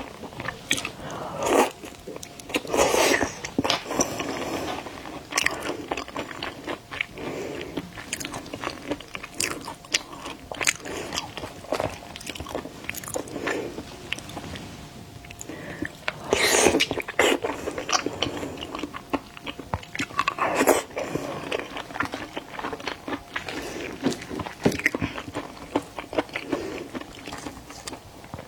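Close-miked eating of seafood: steady biting and chewing with many small sharp clicks. Several louder bites stand out, about a second and a half and three seconds in, and again around sixteen and twenty seconds.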